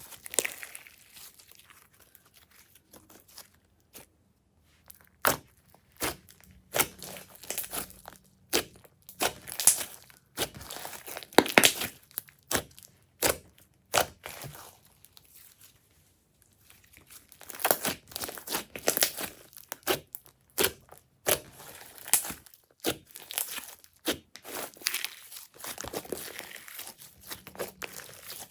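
Glossy slime being mixed and worked, with irregular sticky pops and crackles coming in clusters and brief quiet pauses between them.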